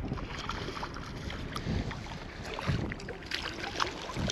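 Water lapping around a fishing kayak with wind on the microphone as a small European sea bass is reeled to the boat, the fish splashing at the surface near the end.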